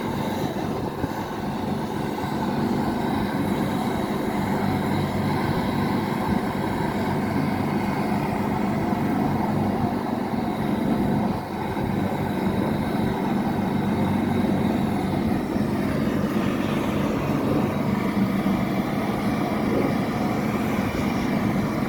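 Air-conditioning condensing unit running with a steady mechanical hum and fan noise.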